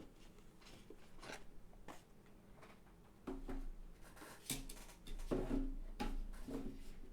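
Unboxing handling noise: packaging being opened and handled, with scattered taps, clicks and rustles that get busier and louder about halfway through.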